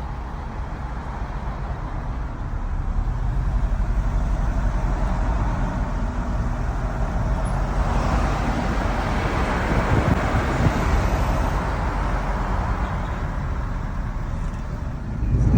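Car with a rebuilt 2.0-litre turbo TFSI/TSI four-cylinder engine driving: steady engine and road noise that swells a few seconds in and again around the middle.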